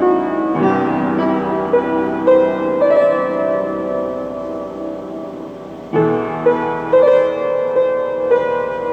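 Solo piano playing a slow, gentle melody over held chords. A new low chord is struck about half a second in and again about six seconds in, with single melody notes picked out above them.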